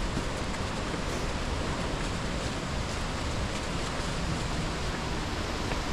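Rushing river rapids: a steady, even noise of fast-flowing water.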